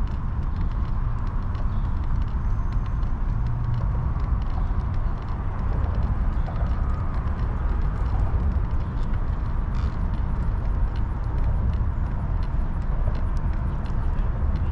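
Steady wind buffeting the microphone and the rolling rumble of wheels on a paved path during a ride, with many faint ticks and rattles throughout.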